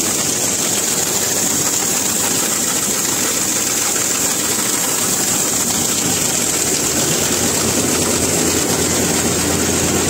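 Tractor-driven Satnam 650 mini combine harvester running steadily, its diesel engine and machinery going with a constant high whine while the unloading auger empties the grain tank.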